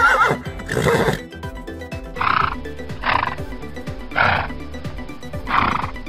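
Horse whinnying: one wavering call right at the start, then a burst about a second in and four shorter, breathy calls spread over the following seconds. Background music with a steady beat plays throughout.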